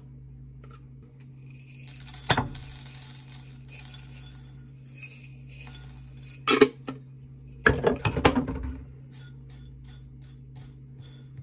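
Dry granola poured from a glass jar, rattling into a ceramic plate, with sharp clinks of glass and dish. The loudest clatters come a little past the middle.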